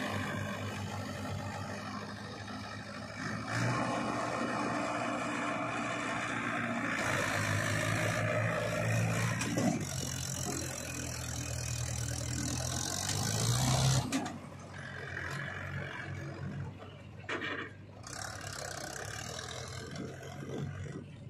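Mahindra 475 DI tractor's diesel engine pulling a trolley loaded with soil, the engine note rising under load over the first fourteen seconds. It then drops abruptly to a quieter, more distant engine sound as the loaded tractor moves away.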